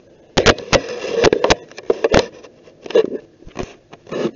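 A quick run of sharp knocks and clatters, a dozen or so, spread unevenly over about four seconds.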